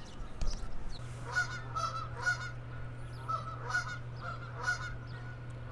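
Birds giving a series of short, repeated calls, about two a second, over a steady low hum that starts about a second in.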